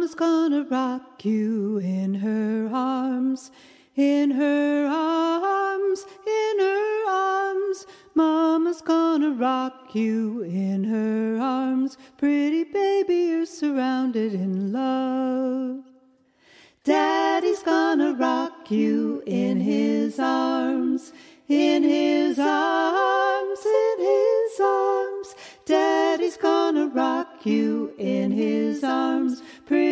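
A woman singing a slow melody with no instruments, in phrases with short breaks between them and one longer pause just after the middle.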